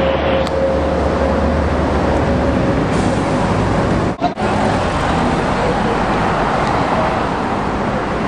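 Road traffic at a busy street crossing: vehicles running and passing, with a steady engine hum in the first couple of seconds. The sound cuts out twice, briefly, about halfway through.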